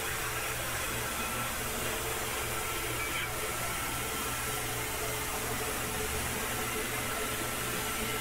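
Tormach PCNC 1100 CNC mill's spindle running a 1/8-inch HSS end mill at 5100 RPM through aluminum: a steady whir with a low hum underneath.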